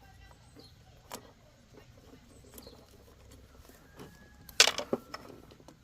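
Scattered clicks of small metal tools and parts being handled, with a short clattering rattle about four and a half seconds in that is the loudest sound.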